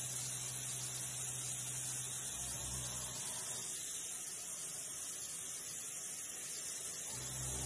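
CNC milling machine roughing hardened Toolox 44 steel (45 Rc) with a 2-inch high-feed cutter: a steady hiss, with a low hum that drops away about two seconds in and returns near the end.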